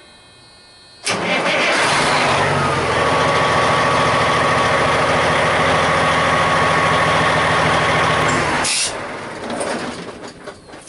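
A big truck's engine started with its freshly reconnected batteries, catching about a second in and running steadily with a whine, then shut off near the end and winding down.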